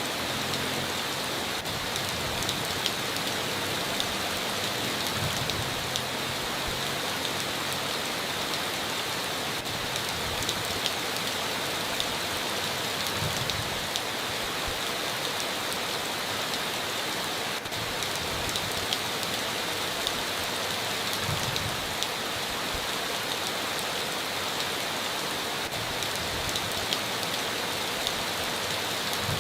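Steady rain falling, an even hiss dotted with sharp ticks of individual drops striking a surface.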